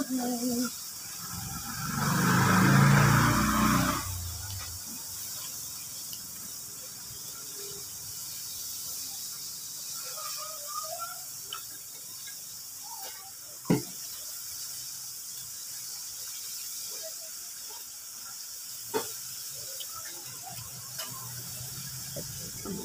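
Steady hiss of background noise, with a loud low rumble lasting about two seconds near the start and two sharp knocks later on.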